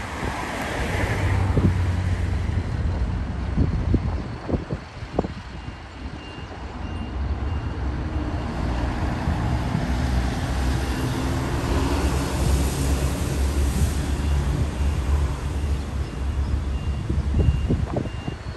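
Heavy diesel engines rumbling with passing road traffic in a rail yard, a reversing beeper sounding about once a second from about six seconds in, and a few knocks in the first five seconds and again near the end.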